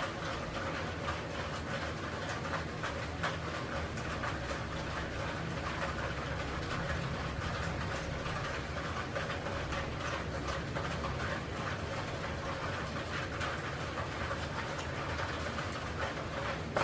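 Steady mechanical hum with a constant tone and a hiss, sprinkled with faint light clicks.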